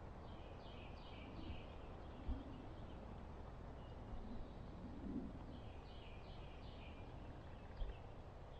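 A songbird singing a short phrase of several quick down-slurred notes, twice, about five seconds apart, over a steady low outdoor background. Two soft low thumps fall in between.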